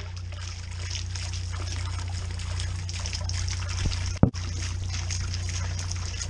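Small stone garden fountain: its jet splashes and trickles steadily back into the basin, over a steady low rumble. A brief thump about four seconds in.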